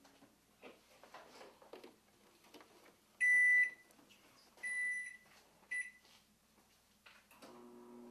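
Microwave oven beeping three times, a long beep then two shorter ones, after faint clicks and handling noises. A low steady hum starts near the end.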